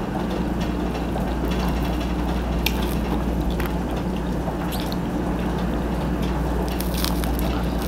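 A steady low hum with a faint hiss, and a few light clicks of cutlery on a plate.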